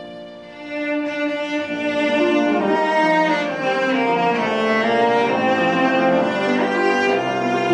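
A piano trio of violin, cello and piano playing classical chamber music. It starts soft and swells louder under a second in, the bowed strings leading.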